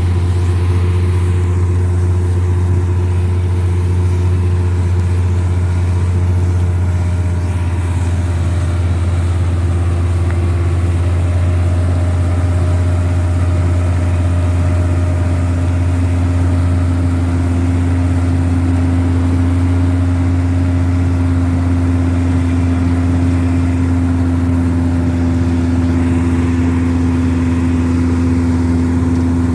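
Wheat combine harvester's engine running steadily under load: a constant deep drone with a whining tone that shifts slightly about ten seconds in.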